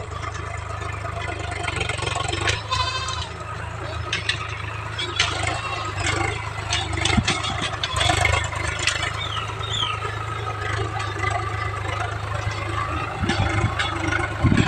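Tractor engine running steadily at a low, even pitch.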